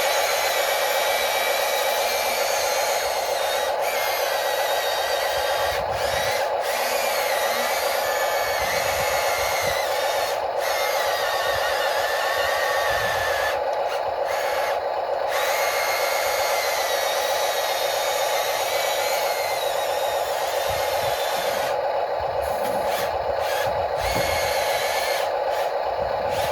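Small electric motors and gearboxes of 1/14-scale RC construction machines running with a steady whir. A higher whine rises and falls as the motors change speed.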